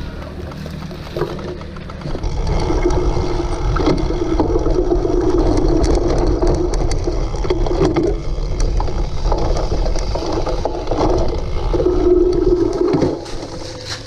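A cyclocross bike being ridden: a steady rumble of tyres and wind noise with frame and drivetrain rattles. It gets louder about two seconds in and eases off near the end.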